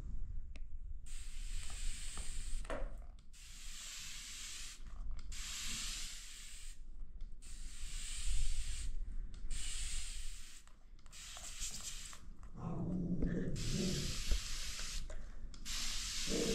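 Spray bottle misting in repeated hissing bursts, each about a second long, with short gaps between them. Lower, softer sounds join in during the last few seconds.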